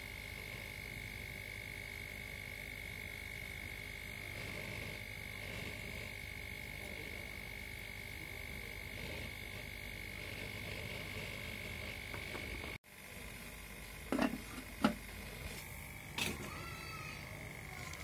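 A steady hum with a thin high whine; after a sudden cut about two-thirds of the way through, three sharp metal knocks as the aluminium lid is set on the biryani pot.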